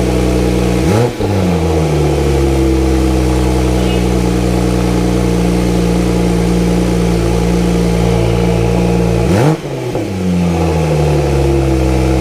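Porsche 911 Turbo S twin-turbo flat-six idling steadily with the rear bumper off. It is blipped twice, about a second in and again near the end, each time rising sharply in pitch and then settling slowly back to idle.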